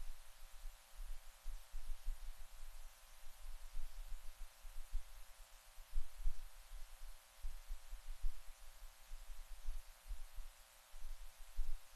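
Quiet room tone: a steady hiss with an irregular low rumble underneath, and no speech or music.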